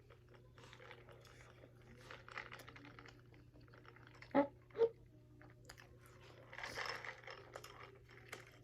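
Close-miked chewing of breaded chicken wings: small crunches and wet mouth sounds, with two short loud pops close together about four and a half seconds in.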